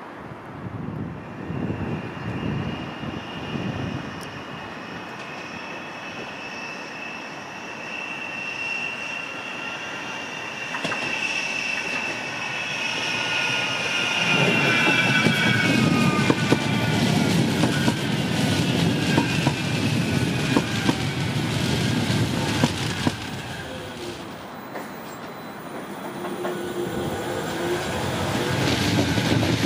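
Manchester Metrolink M5000 tram wheels squealing on a curve, a high ringing squeal that slowly falls in pitch. About halfway through, the rumble of the tram running close by comes in, and it swells again near the end as another tram approaches.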